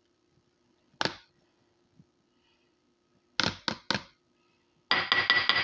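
Metal spoon clinking against a small glass bowl, tapping the garlic out: one clink about a second in, three quick ones a couple of seconds later, then a fast run of about six ringing clinks near the end.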